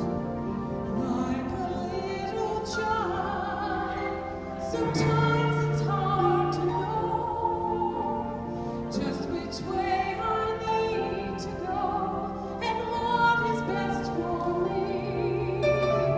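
A woman singing a slow solo vocal line into a microphone, with held accompaniment notes underneath.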